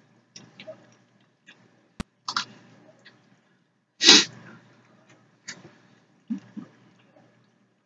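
Mouth sounds of a person eating pasta close to the microphone: a few short, sharp hissing slurps or breaths, the loudest about four seconds in, with a sharp click about two seconds in and small wet clicks and chewing noises between.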